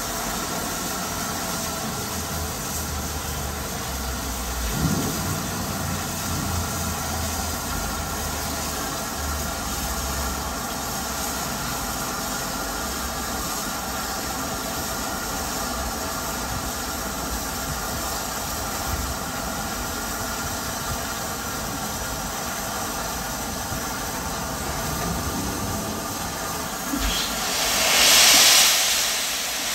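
Steam locomotive 35028 'Clan Line', a rebuilt Merchant Navy class Pacific, standing in steam with a steady hiss and hum. Near the end its cylinder drain cocks open with a loud burst of hissing steam, which swells and then fades: the drain cocks are clearing condensed water from the cylinders as the engine gets ready to move.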